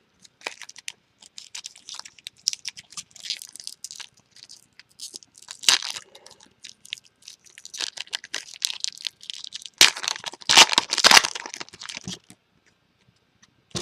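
A foil trading-card pack wrapper being torn open and crinkled, with scattered crackles throughout. The loudest burst of tearing and crumpling comes about ten seconds in.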